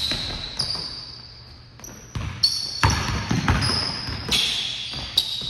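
A basketball bouncing on a hardwood gym floor, a series of sharp thumps that come thicker in the second half as a player dribbles, with short high-pitched sneaker squeaks scattered among them.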